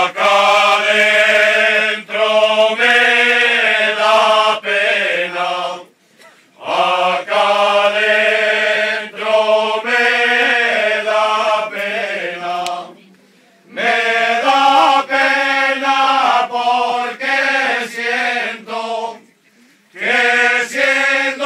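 A group of voices singing together unaccompanied, in long held phrases broken by three short pauses.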